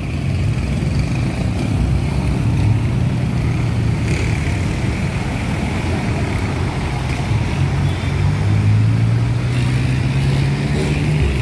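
A train passing close by: a steady low diesel engine drone over loud, continuous rushing wheel-and-rail noise.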